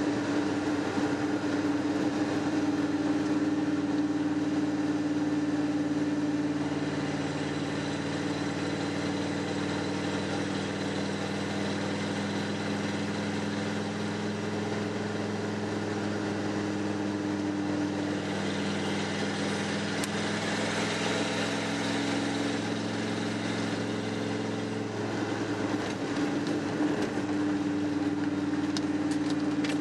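1994 Ford F-150's 5.0-litre V8 running steadily while driving on a wet road, heard from inside the cab, with tyre and road hiss underneath. The engine note shifts a little about two-thirds of the way through, when the hiss briefly swells.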